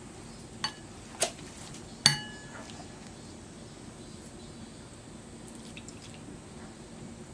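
Three sharp knocks of kitchen utensils on dishware about a second apart, the last and loudest a ringing clink like a bowl being struck; after that only a faint steady hum.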